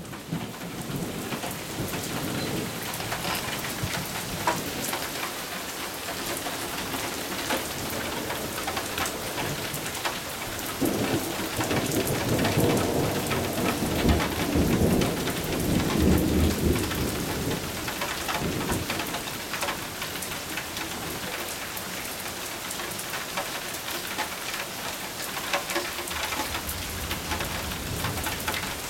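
Thunderstorm: steady rain falling, with many sharp drop ticks. A long roll of thunder rumbles from about a third of the way in until past the middle.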